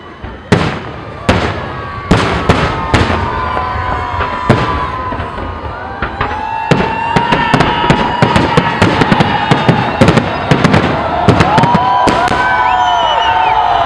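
Fireworks display: shells bursting with sharp bangs about a second apart at first, then a rapid volley of many bangs from about seven seconds in.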